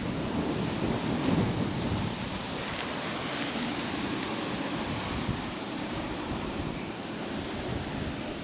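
Steady rushing noise of wind on the microphone, with heavier low rumbling gusts in the first two seconds.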